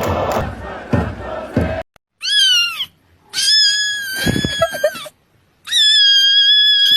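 A noisy crowd-like din cuts off abruptly, then a cat meows three times: a short meow with a falling end, a longer one, and a long held high meow near the end.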